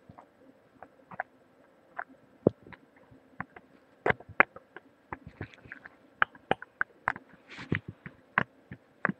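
Irregular sharp clicks and soft knocks picked up through a webcam microphone held against the head, sparse at first and coming faster and louder from about four seconds in, with a brief hiss near the end.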